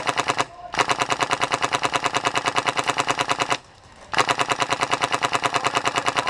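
Polarstar-powered airsoft RPK firing full-auto in long strings of rapid, evenly spaced shots. A burst ends about half a second in, a long burst of about three seconds follows, then after a short pause another burst runs on near the end.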